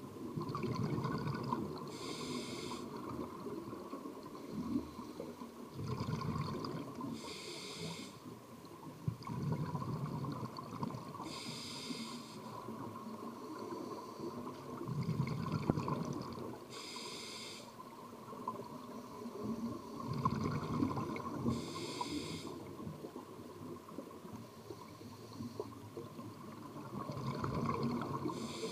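Open-circuit scuba regulator breathing heard underwater: a short hissing inhale about every five seconds, alternating with the low bubbling of the exhale.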